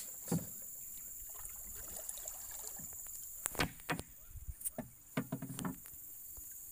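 Wire-mesh fish trap (bubu) knocking and rattling as it is handled on a small boat, with a cluster of sharp clanks past the middle, over a steady high hiss.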